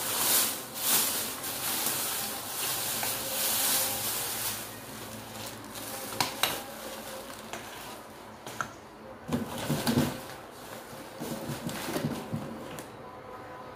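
Plastic wrapping crinkling and rustling as it is pulled off a new baby stroller. Then come a few sharp clicks and a run of knocks and clatter as the stroller frame is handled and opened out.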